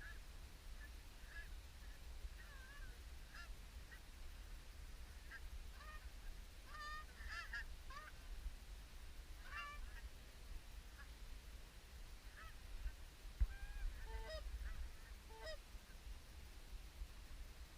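Canada geese honking in scattered short calls, coming thickest in the middle and again a few seconds later, over a low steady rumble with one thump a little past the middle.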